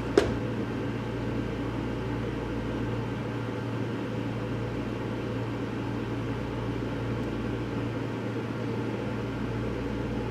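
Microwave oven running with a steady hum, with one sharp click just after the start.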